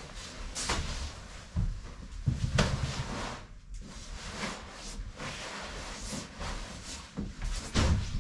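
Puffy nylon sleeping bag rustling and swishing as it is gathered up and handled, with several dull knocks in between.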